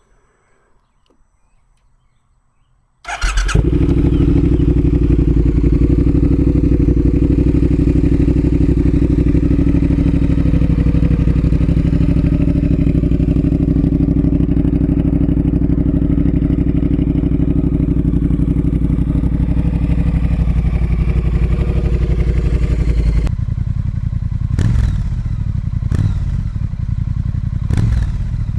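Triumph Speed Twin parallel-twin motorcycle engine starting about three seconds in and settling into a steady idle. Near the end the sound changes to a lower engine note with a few short throttle blips, the bike on its stock exhaust.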